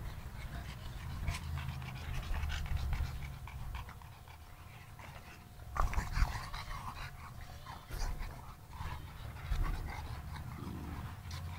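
A Sarplaninac and a shar-pei play-fighting: panting and scuffling, with a short louder flurry about six seconds in.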